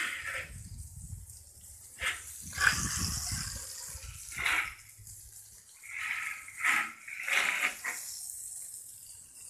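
Water spraying from a garden hose spray nozzle in several short bursts, with a hissing spray partway through.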